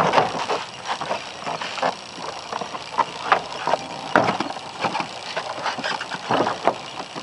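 Plastic interior door panel of a 2000 Toyota Corolla's driver's door being worked loose: an irregular run of sharp clicks and knocks as the retaining clips pop free and the panel rattles against the door.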